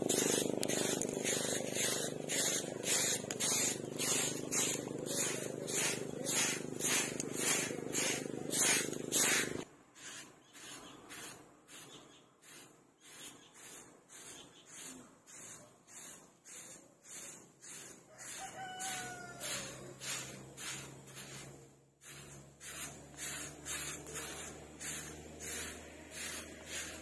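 A stiff stick broom (walis tingting) sweeping cut grass, giving rhythmic scratchy swishes at about two strokes a second. A steady hum sits under the first third and cuts off suddenly, and a rooster crows faintly about two-thirds of the way in.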